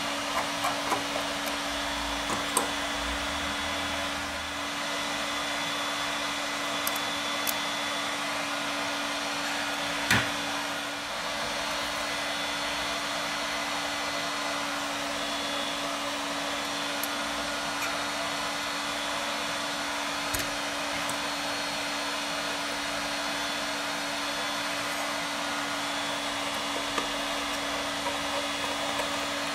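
Steady fan-like drone with a constant low hum, running evenly throughout. A few small sharp clicks of metal tools on phone parts stand out above it, the loudest about ten seconds in.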